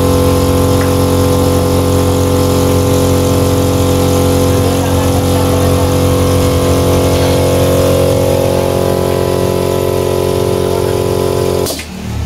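An engine running steadily at idle, with an even low pulsing, that cuts off abruptly near the end.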